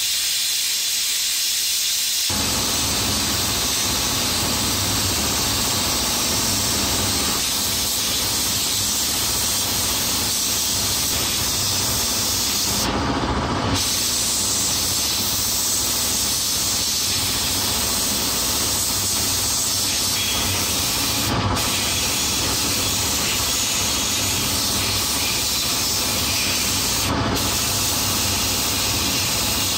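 Abrasive blast cabinet gun hissing steadily as compressed air and grit strip old paint and rust from a metal part of an antique electric chisel. The blast deepens about two seconds in and briefly changes about a third of the way through and twice more later.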